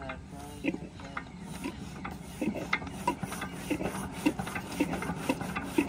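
Single-cylinder stationary diesel engine and its belt-driven water pump turning over slowly, with a regular knock about twice a second over a steady hum, growing louder as the engine picks up.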